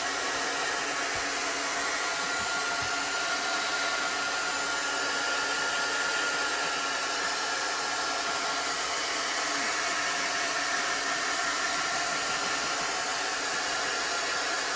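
Hand-held electric hot-air dryer running steadily: an even rush of blown air with a steady hum and whine, used to dry a wet chalk-paste transfer.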